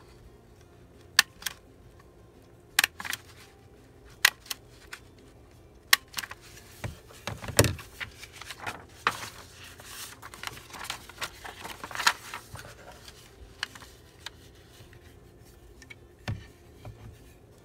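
A hand-squeezed lever paper tool snapping shut on kraft paper: sharp clicks, mostly in pairs, over the first six seconds. Then paper rustling and handling, with a soft thud about seven and a half seconds in.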